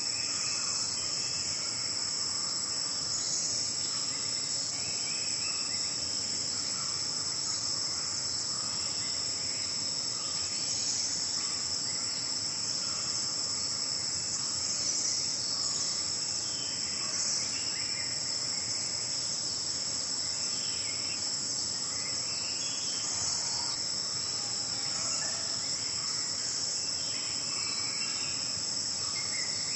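A steady, unbroken, high-pitched chorus of insects, with faint scattered chirps beneath it.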